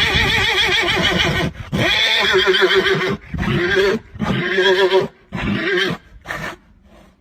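Horse whinnying: a string of long, quavering neighs, about five or six calls in a row that grow shorter and fainter toward the end.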